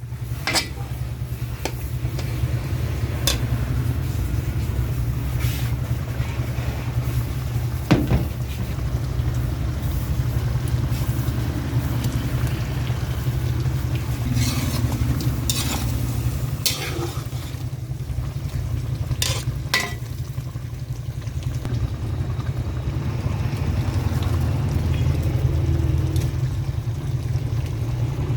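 Chicken frying in a pan, stirred with a utensil that clinks and scrapes against the pan every second or few, over a steady low hum.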